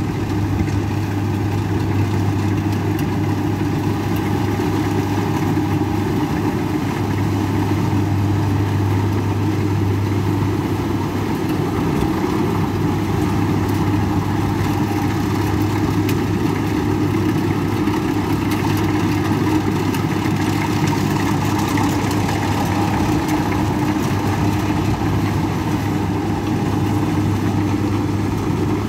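Kubota DC60 combine harvester's diesel engine running steadily as it harvests rice, a loud, even drone with a deep hum.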